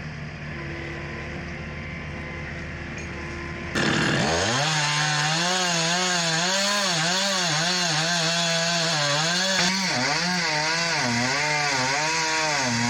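A low, steady engine hum, then about four seconds in an abrupt change to a chainsaw cutting through the Douglas fir trunk, its pitch rising and falling as it cuts.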